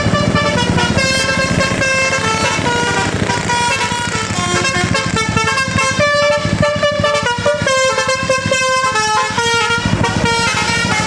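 A tour bus's telolet horn of the 'basuri' type playing a melody in short held notes that step up and down in pitch, over the bus's engine running.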